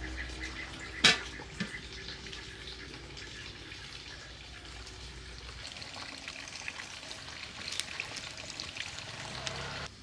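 Water running and trickling, with scattered small clicks and one sharp knock about a second in.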